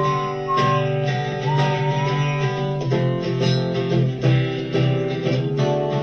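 Instrumental break of a song: strummed acoustic guitar chords with a whistled melody over them, the whistling stopping about halfway through while the guitar carries on.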